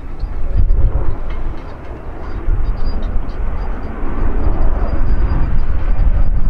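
Boeing 737 airliner's twin jet engines rumbling as it passes low overhead on approach. The rumble jumps up sharply right at the start and stays loud and uneven.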